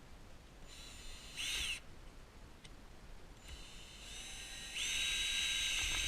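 Cordless drill driving mounting screws: a short high-pitched whine of the motor spinning up and down about a second in, then a longer run from about three and a half seconds that gets louder and stops at the end.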